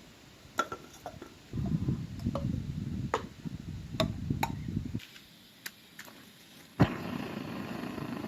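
A series of sharp knocks and clicks of hard objects being handled, some with a short ringing tail. A low rumbling noise runs under the first few, and a steady hiss starts with the loudest knock near the end.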